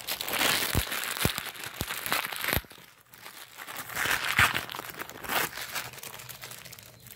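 Clear plastic bag crinkling and rustling as it is opened and handled to take out a new faucet cartridge, with a few sharp clicks in the first three seconds.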